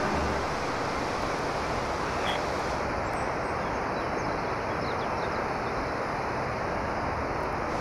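Mountain torrent rushing over boulders: a steady, even rush of white water.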